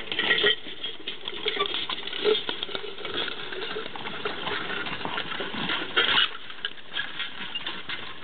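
Irregular crackling and rustling as a horse-drawn walking plow tears through grassy sod, with a few louder scrapes.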